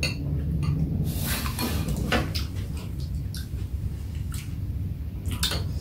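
Metal chopsticks and a spoon clicking and scraping against a steel pan and ceramic bowls while eating, a handful of light clicks over a steady low background rumble.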